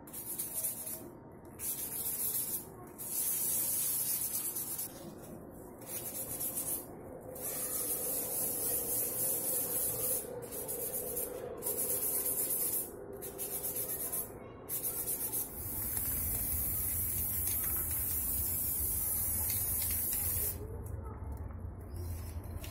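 Aerosol spray can hissing in a string of short bursts, then one longer continuous spray of about five seconds.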